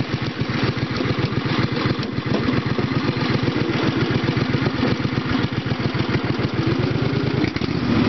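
Repowered lawn tractor's single-cylinder-style small engine idling with an even, steady beat, then picking up speed near the end.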